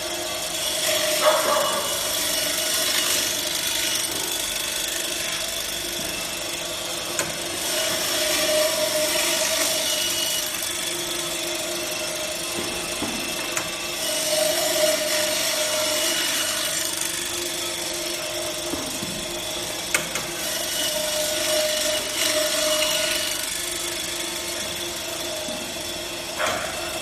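Electric meat band saw running with a steady hum while its blade cuts through frozen meat. The cutting sound turns harsher in repeated passes, about every six seconds.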